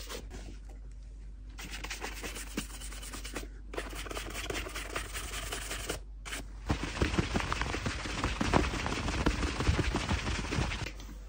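Shoe brush buffing waxed leather on a boot's toe in fast back-and-forth strokes, a rapid scratchy brushing with a few short pauses that gets louder in the second half.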